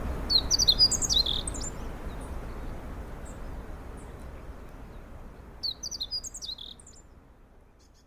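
A songbird singing two short phrases of quick, high chirping notes, one near the start and one about six seconds in, each about a second long. Under them is a steady low rumble that fades out toward the end.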